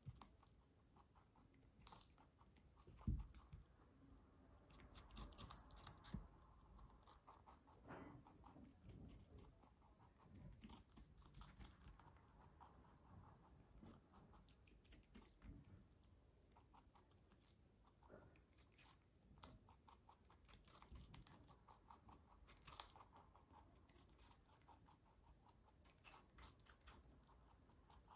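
A white lop rabbit chewing and biting into a whole cucumber: quiet, quick, crunchy bites and chewing. There is a single low thump about three seconds in.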